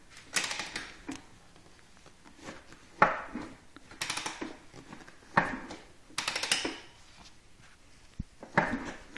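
Metallic clacking and rattling from a Honda CR125 two-stroke engine's piston and connecting rod, in six short bursts, each a sharp knock that trails into rattling. The owner takes it for piston slap; the connecting rod has up-and-down play.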